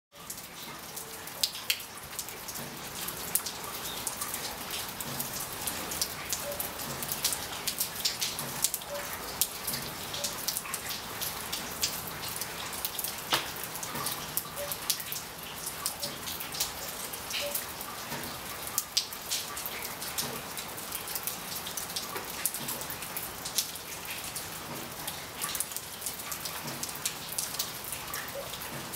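Steady rain, with many individual drops hitting a hard surface as sharp clicks, a few louder than the rest.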